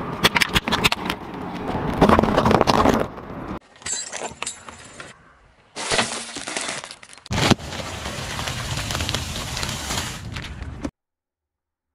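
A car tyre rolling over and crushing small objects in a run of short edited clips: crackling, crunching and popping as laundry detergent pods and then plastic-wrapped packages burst under the tread. Each clip starts and stops abruptly, and the sound cuts out about a second before the end.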